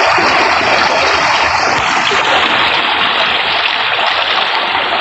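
Steady rush and splash of water running at an old water wheel fed by a launder.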